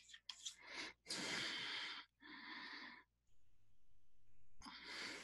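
A person breathing audibly close to the microphone: a long exhale about a second in, a shorter breath after it, and another near the end.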